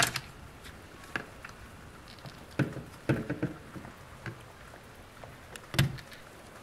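Plastic parts of an opened-up action figure being handled, giving scattered sharp clicks and knocks. The loudest click is at the start, a small cluster of knocks comes about three seconds in, and another loud knock comes just before the end.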